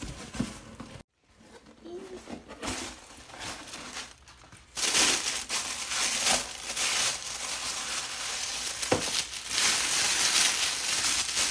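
A cardboard shipping box being opened with soft rustling, then tissue paper and a plastic shoe bag crinkling loudly from about five seconds in as they are pulled apart.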